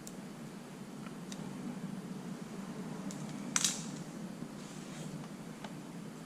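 Faint clicks of small parts being handled, with one short, louder scraping rasp about three and a half seconds in, over a steady low hum.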